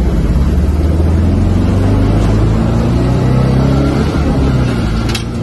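Turbocharged four-cylinder engine of a Mk1 Ford Fiesta, heard from inside the cabin, pulling hard as the car accelerates, rising in pitch and then easing off near the end. A short sharp sound comes about five seconds in.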